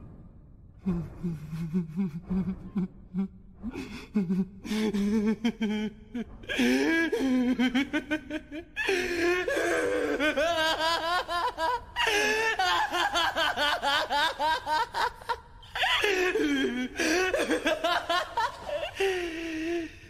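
A string of laughter sound effects: a deep, low chuckling for the first few seconds, then higher-pitched laughing in several separate runs with short breaks between them.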